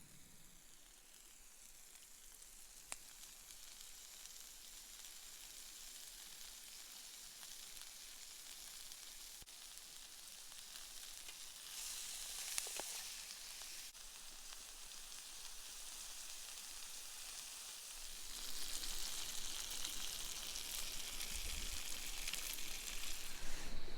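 Vegetables frying in olive oil, a steady sizzle that grows louder, surging about halfway through and louder again for the last few seconds.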